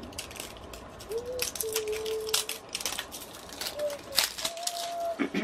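Small plastic toy-accessory wrappers being crinkled and torn open by hand, a quick irregular run of sharp crackles and clicks.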